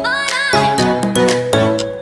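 Background pop music: struck, chiming notes in a steady rhythm, with a melody line that bends up and down in pitch in the first half-second.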